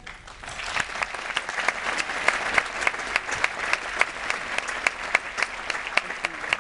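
Audience applauding, swelling over the first second and then holding steady, with sharp louder claps from hands close by.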